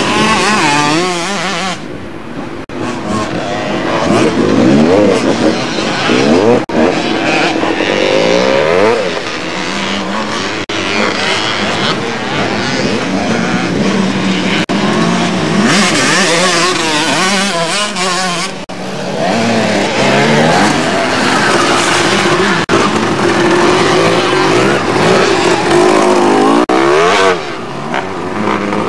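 Motocross bikes' engines revving up and down as they ride the track, several overlapping at once, with rising and falling pitch as riders open and close the throttle.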